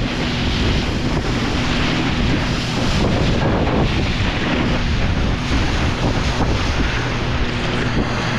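Jet ski running under way, its engine a steady low drone beneath loud wind buffeting the microphone and rushing water.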